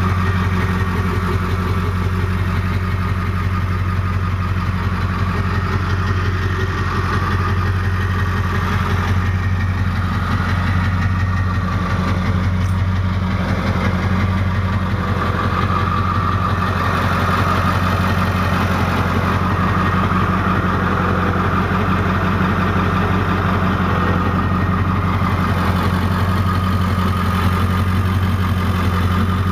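Ford 7.3-litre Power Stroke V8 turbo diesel idling steadily.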